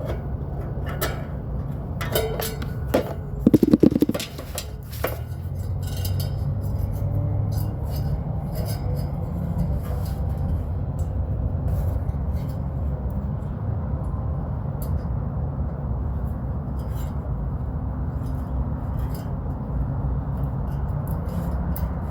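Metal clinking and tapping from hands-on work on the condenser, with a loud clatter about three and a half seconds in, over a steady low machine hum.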